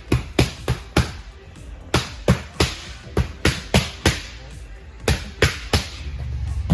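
Boxing gloves smacking sharply against the trainer's pads in quick combinations of three or four punches, about three a second with short pauses between combinations, over background music.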